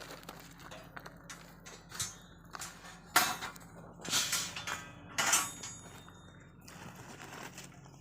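Irregular clanks and scrapes of metal tools at work, the loudest about three, four and five seconds in.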